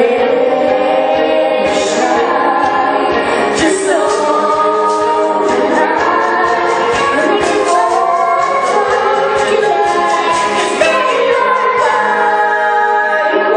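Youth choir singing a pop song in harmony, many voices together without a break.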